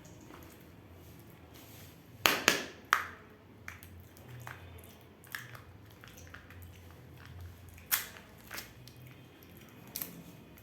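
Kinder Joy plastic egg capsules and wrappers being handled and snapped open: sharp plastic cracks and clicks, a cluster of three about two seconds in, another a little before eight seconds and a pair near ten seconds, with softer small clicks between.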